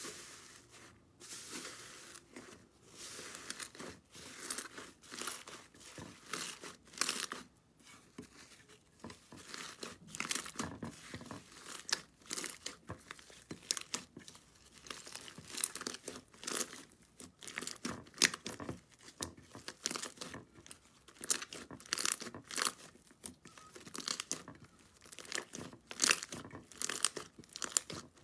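Thick, fluffy slime being pressed, folded and stretched by hand in a glass dish, giving an irregular run of small crackles, pops and tearing sounds, several a second.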